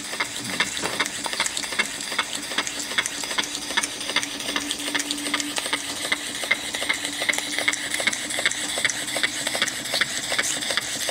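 Twin-cylinder, single-acting, rotary-valve model steam engine running steadily: a quick, even beat of sharp steam chuffs and clicks over a steady hiss.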